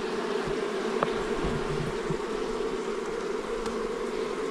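Honey bee colony buzzing around its nest after the tree trunk holding it has been split open: a steady, dense hum, with a faint click about a second in.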